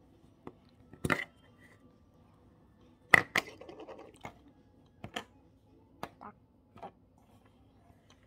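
Hands squeezing and pulling a lump of orange slime, making scattered sharp clicks and pops about a second in and again from about three seconds on, with a short rustle just after three seconds.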